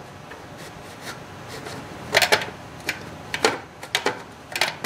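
Scattered sharp clicks and small knocks, several in the second half, as a distributor cap is pressed and worked onto a Chevrolet 305 V8's distributor and will not quite seat.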